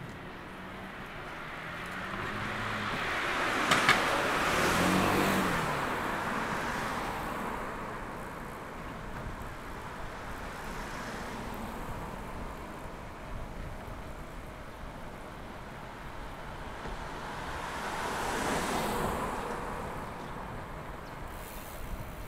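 City street traffic heard from a moving bicycle. A motor vehicle passes close about four to five seconds in, its engine note dropping as it goes by, with a sharp click just before it passes. Another vehicle passes more quietly near the end.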